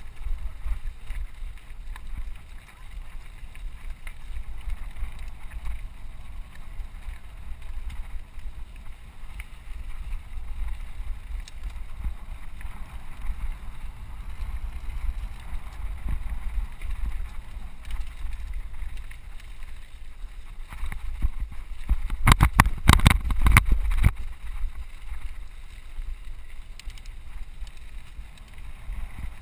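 Wind buffeting a helmet-mounted camera's microphone as a mountain bike rolls down a gravel trail, with a steady low rumble and tyre and frame rattle. About 22 seconds in, a burst of loud knocks and rattles lasts about two seconds.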